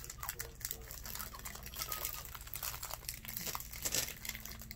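Clear plastic packaging crinkling as a wrapped roll of diamond-painting drill bags is handled and pulled open, in irregular crackles, loudest about four seconds in.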